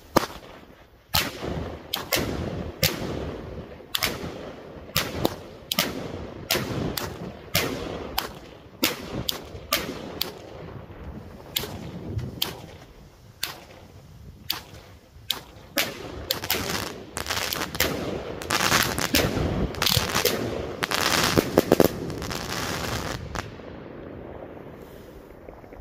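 The TXB 539 "Ziomek" 25-shot, 25 mm firework cake firing its shots one after another as sharp launch and burst reports. The shots come thicker and merge into a near-continuous crackling run toward the end, then stop a couple of seconds before the end.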